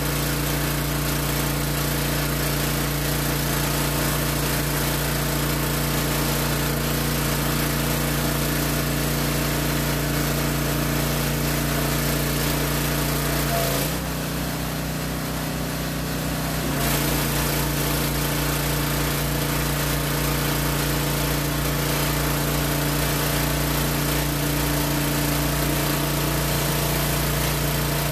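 Generac 2700 PSI gas pressure washer engine running steadily, with the spray hissing as a hard surface cleaner is pushed over concrete. About halfway through, the spray hiss stops for around three seconds and the engine note changes, then the spray starts again.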